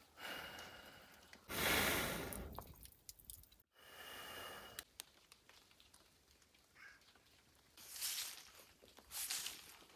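A long, rushing breath blown into a clay oven's fire opening to fan the flames, about a second and a half in. Near the end, a cloth wipes across a wooden table top in several brushing strokes.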